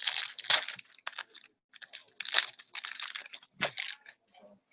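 A foil-wrapped pack of 2015-16 Upper Deck Series 1 hockey cards being torn open and crinkled by hand, crackling in bursts: loudest in the first second, again about two seconds in, with a short crinkle near the end.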